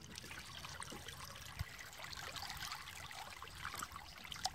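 Faint trickling and lapping of river water beside the boat's hull, where a small snook is held in the water on a lip grip. A faint knock about a second and a half in.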